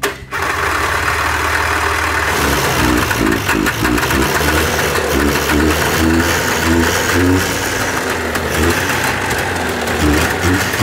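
Snowcat's two-stroke engine firing up and running steadily at fast idle, blowing out oil built up in the muffler.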